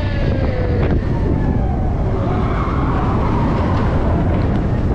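Expedition Everest roller coaster train running along its track, a loud steady rumble. A falling whine fades out in the first second.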